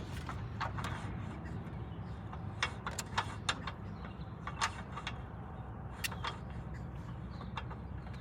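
Scattered clicks and knocks of gear being handled and set down, over a steady low rumble.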